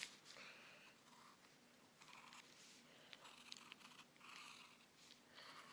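Faint pen strokes on paper: several short scratchy strokes, each about half a second long, with near silence between them.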